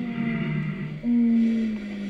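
Two long howls, each held about a second and sliding slightly down in pitch, the second one louder.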